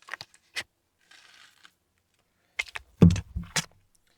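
Small clicks and light metallic rattles of tiny screws being handled, with a brief faint rustle, then a cluster of louder taps and knocks about three seconds in.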